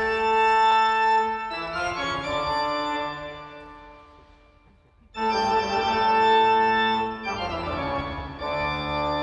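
Music with sustained organ-like chords. One loud chord fades over about four seconds, then a second loud chord comes in about five seconds in and fades again.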